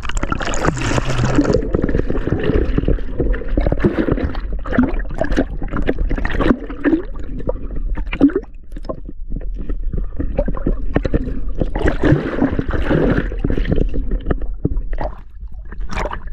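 Lake water splashing and sloshing close by as a person swims, with irregular splashes throughout.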